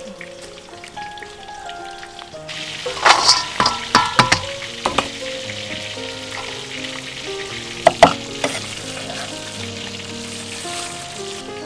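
Food preparation: a steady hiss with loud knocks and clatters, a cluster about three to five seconds in and two more near eight seconds, as vegetables are handled in a steel bowl. Soft background music with held notes plays throughout.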